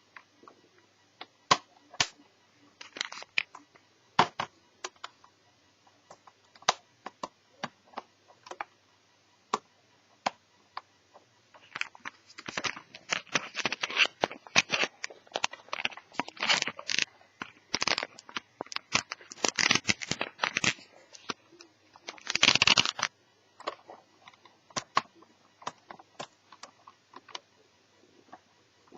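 Hand-handling noise from a small laptop's plastic case and parts: scattered sharp clicks and taps, a busier stretch of clatter and scraping in the middle, and one longer scrape about two-thirds of the way through.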